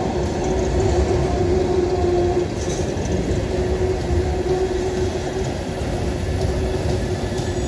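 Freight train of CSX open-top hopper cars rolling past on a curve: a steady rumble of steel wheels on rail, with a held squealing tone from the wheels that weakens about a third of the way in.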